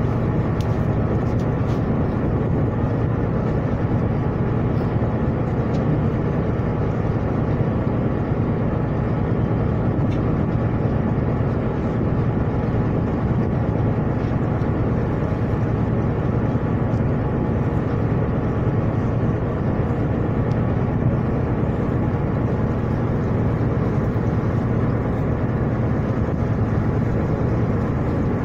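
Steady low drone of a ship's engine running.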